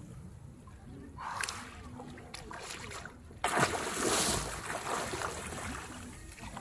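A person diving headfirst into shallow sea water: a sudden loud splash about halfway through, followed by churning water that slowly dies away as he swims under the surface.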